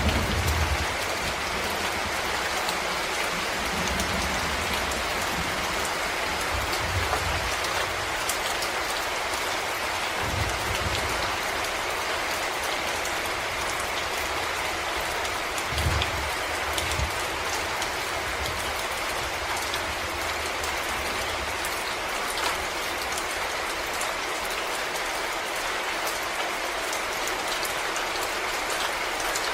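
Steady rain falling in a forest, a dense patter of drops on leaves and ground with many fine individual drop ticks. A few soft low thumps come through now and then, the clearest about 16 seconds in.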